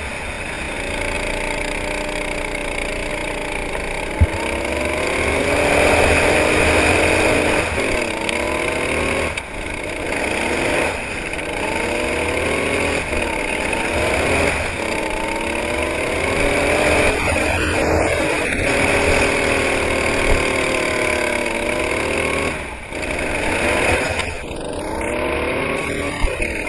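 Kart engine heard from on board, its pitch climbing as it accelerates and dropping back each time it lifts off, over and over. A steady rushing hiss runs underneath.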